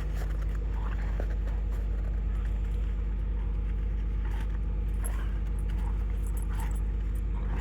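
Diesel dually pickup truck engine running with a steady low drone, with faint jingling clicks on top.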